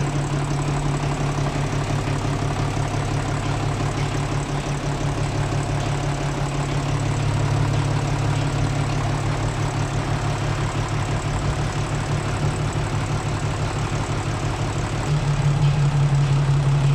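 Hino truck diesel engine idling steadily after a rebuild. Its rumble gets a little louder about fifteen seconds in.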